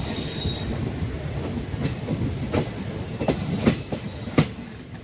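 ICF passenger coach wheels running over the track with a steady low rumble. A faint high squeal fades out in the first second, then five sharp clacks come at uneven spacing over the next few seconds as the wheels cross rail joints.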